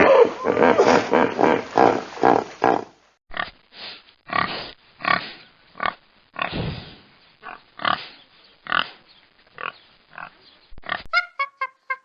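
Pigs grunting: a dense run of rapid grunts, then after a short break about three seconds in, separate short grunts and squeals every half second or so. Near the end, a bird's short pitched calls begin.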